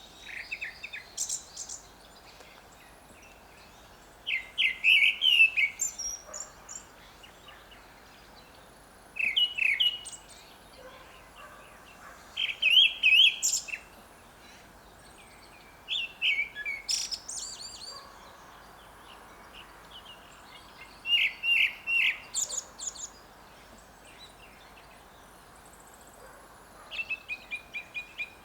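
Grey-backed thrush singing: short phrases of clear whistled notes, each phrase a second or two long, repeated every few seconds with pauses between, and a quicker run of repeated notes near the end.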